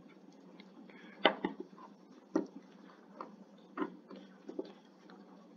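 Handling clicks and knocks, about six in all and the loudest a little over a second in, as the jumper-wire connectors of an LED strip are pushed onto the pin headers of an ESP32 expansion board.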